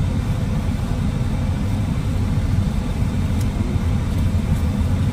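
Steady low rumble of a car's road and engine noise heard inside the cabin.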